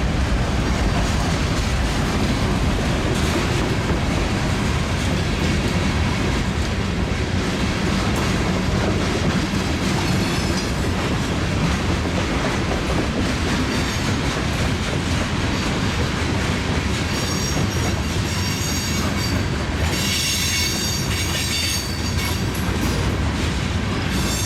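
Freight train cars rolling steadily past. From about 17 to 22 seconds in, a high-pitched wheel squeal rings out over the rumble.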